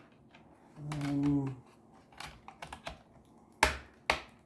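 Sharp plastic clicks and taps from a laptop's plastic case being handled and pried at, the loudest about three and a half seconds in. A short hummed "hmm" comes about a second in.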